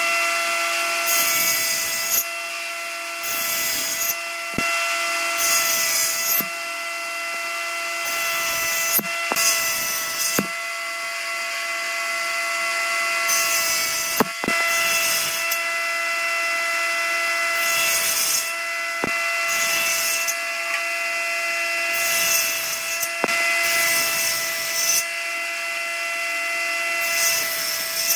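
An electric power tool running with a steady high motor whine. Every few seconds it breaks into bursts of harsher, hissing noise as it cuts into wood.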